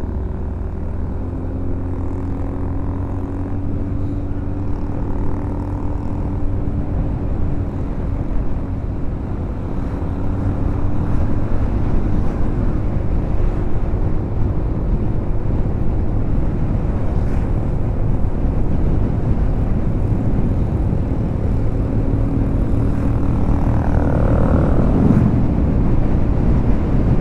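2013 Honda Beat scooter cruising at a steady 60 to 80 km/h: its small single-cylinder engine's hum under a heavy rush of wind on the microphone, growing a little louder about ten seconds in.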